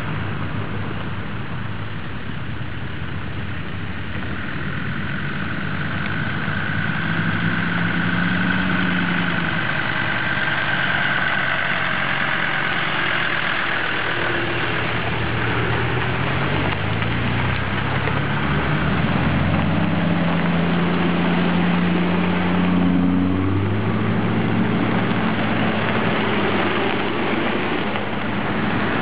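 A convoy of Land Rover 4x4s (Defenders, a Series Land Rover, a Range Rover Classic and Discoverys) rolling slowly past at low revs, several engines running together, their pitch rising and falling as the vehicles pass one after another.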